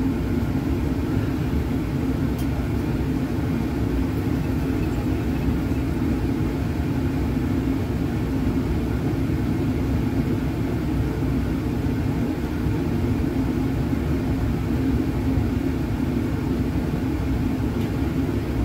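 Fume hood ventilation running steadily: an even, low rush of moving air with no distinct events.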